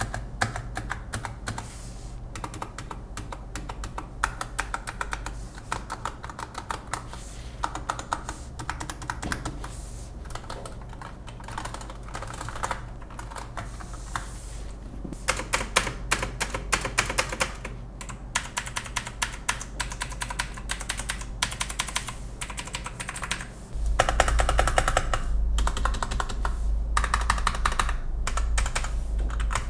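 Fast, continuous typing on a Keychron mechanical keyboard, a dense clatter of key switch clicks. Near the end it gets louder, with a low rumble underneath.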